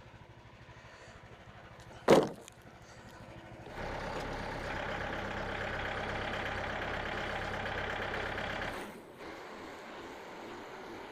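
A sharp bang, then an engine running steadily and loudly for about five seconds before dropping back to a low hum.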